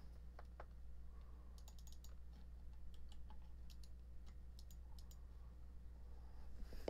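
Faint, irregular clicks of a computer mouse and keyboard, some in quick pairs, over a steady low hum.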